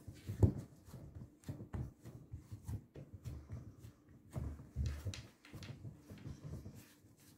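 Hands patting, pressing and folding a block of puff pastry dough on a floured wooden board: soft, irregular pats and rubs, with a sharper knock about half a second in and a few louder taps in the middle.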